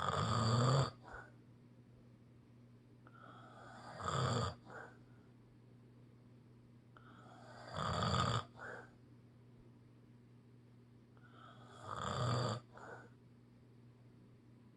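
Snoring: four loud snores about four seconds apart, each followed a moment later by a short, softer breath.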